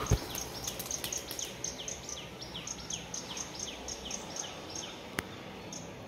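A bird in the trees calling a rapid series of short, falling chirps, about three a second, over steady outdoor background noise. A thump at the very start and a single sharp click near the end.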